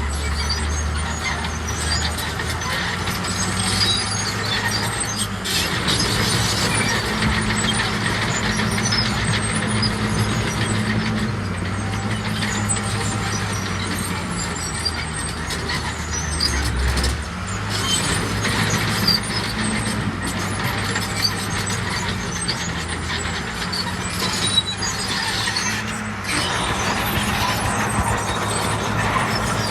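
Heavy diesel earthmoving machinery, a bulldozer and dump trucks, running steadily at work, with a few sharp knocks.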